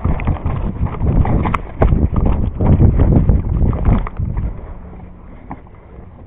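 Rapid, irregular footfalls and knocks of someone moving on foot with the camera, with rustling handling noise, easing off about four seconds in to a quieter steady hum.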